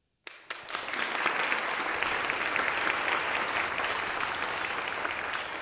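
Audience applauding: the clapping breaks out suddenly just after the start and builds to full, steady applause within about a second.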